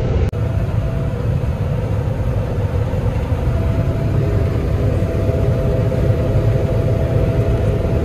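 A heavy vehicle engine running steadily, a low rumble with a faint steady whine above it. It drops out briefly just after the start.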